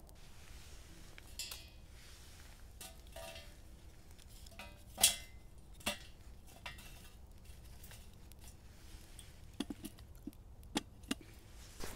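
Scattered light knocks and metal clinks as sticks are fed into a wood-burning camp stove and a metal kettle is set back on top of it, the loudest knock about five seconds in.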